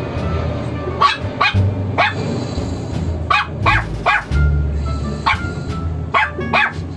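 A Shih Tzu barking in short groups of two or three barks, about nine in all.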